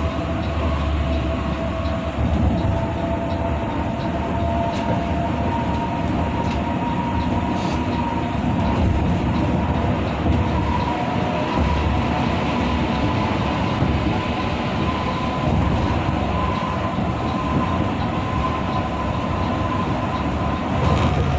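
Steady cabin drone of a coach cruising at highway speed: engine and tyre rumble with a faint steady whine that drifts slightly in pitch.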